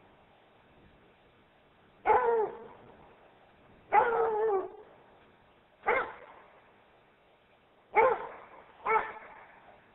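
Rhodesian Ridgeback barking five times in single barks a second or two apart, the second bark drawn out longer than the others. The dog is barking at figures in white sheets that confront it.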